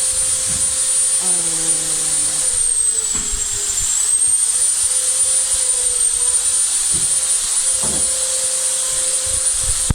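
Steady high-pitched whine of an electric motor over a loud hiss. Its pitch sags briefly about three seconds in and then recovers. A few short knocks come near the end.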